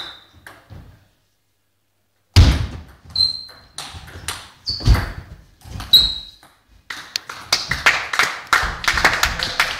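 Table tennis ball pinging off bats and the table during a rally, a few hard strokes about a second apart. Near the end, a few people clapping.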